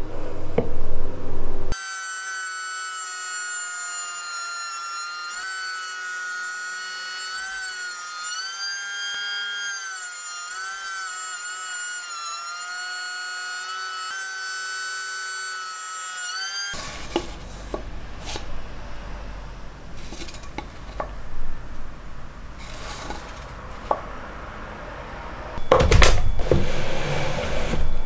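Makita KP0800ASP electric hand planer running with a high whine whose pitch sags and wavers as a board is fed past its blades under load. The whine stops about two-thirds of the way through, followed by scattered knocks of wood being handled and a louder rush of noise near the end.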